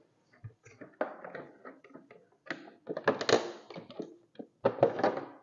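Honda Biz 110i's plastic headlight cover being worked onto the handlebar by hand: scattered clicks, taps and scraping of plastic against plastic, busiest about three seconds in and again near the end.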